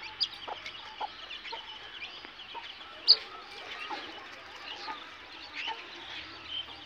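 Domestic hen clucking low with her young chicks peeping, short high cheeps scattered throughout. One sharp, much louder sound stands out about three seconds in.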